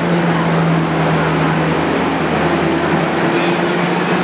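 Engine of a WWII M8 Greyhound six-wheeled armored car running steadily as the vehicle drives past close by, a constant low drone.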